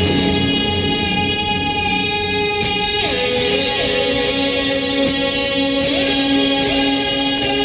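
Fender electric guitar played through shoegaze effects pedals: sustained, washy chords that ring on, their pitch dipping and sliding back several times from about three seconds in.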